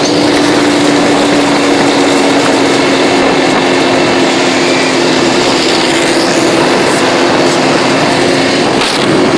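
Quad ATV engine running at a steady pitch under a loud, even rush of noise.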